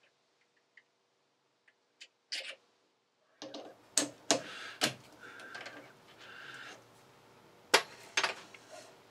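Sharp metal clinks and short scraping stretches as a three-jaw lathe chuck is opened and a small turned steel part is taken out of its jaws. The first few seconds are nearly silent apart from faint ticks.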